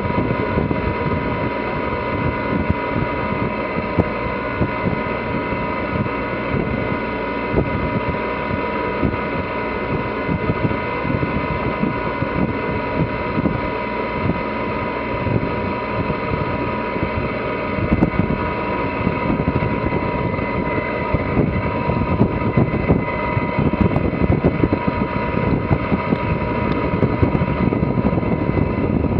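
Wind buffeting the microphone and water rushing along the hull of a J/111 sailboat under sail, with a steady high whine running under it.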